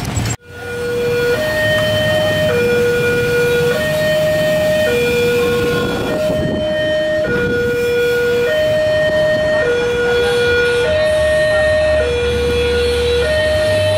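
Electronic two-tone warning alarm of a railway level crossing, alternating steadily between a lower and a higher note about every 1.2 seconds, over the low rumble of waiting traffic. It signals that a train is approaching and the crossing is closed.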